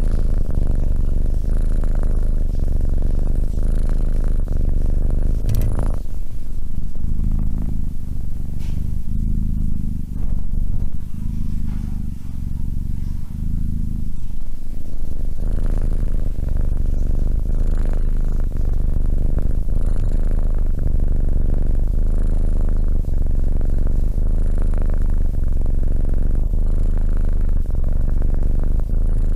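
Tabby kitten purring right at a microphone: a loud, steady low rumble made of fine, even pulses. A single sharp click comes about six seconds in.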